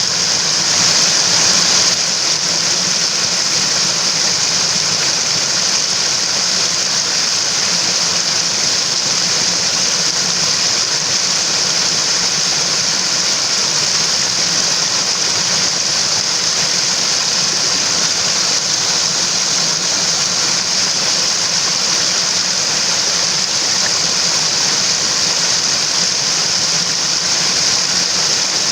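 Water of a mountain stream rushing steadily, an even, continuous hiss of flowing water, briefly a little louder about a second in.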